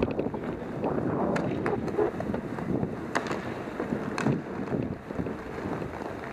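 Roller hockey play: a steady rumble of inline skate wheels on the rink surface, with several sharp clacks of sticks and puck.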